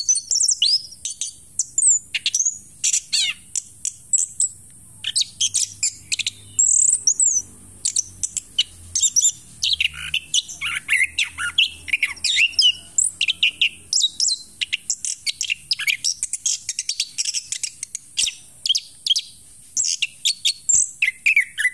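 Orange-headed thrush (anis kembang) in full song while moulting: a continuous, rapid run of varied chirps and whistles with only brief pauses.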